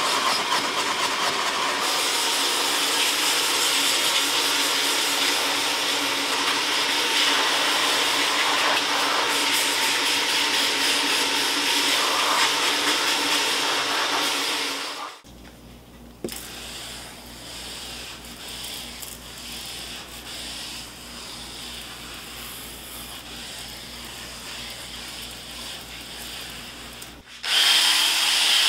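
A vacuum crevice nozzle running steadily along a car's door sill and seat rail. About halfway through it stops and there is a much quieter stretch with a low hum while a door panel is brushed. Near the end a cordless drill spins a scrub brush on a fabric seat, with a steady high whine.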